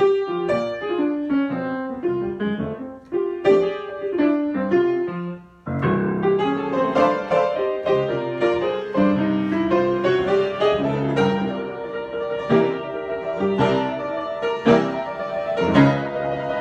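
Solo piano improvising: a sparse phrase of single notes with brief pauses, then from about six seconds in a fuller texture of chords under a rising melodic line.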